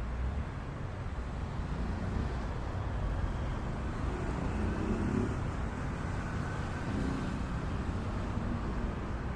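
Steady low rumble of road traffic, swelling slightly in the middle.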